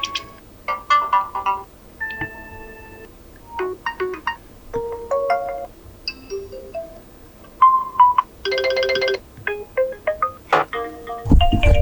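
Oppo F21 Pro 5G alarm tones previewed one after another: short, chiming, bell-like melodic snippets that start and stop abruptly. About eight and a half seconds in comes a brief dense ringing chord, and near the end a tone with a heavy low beat begins.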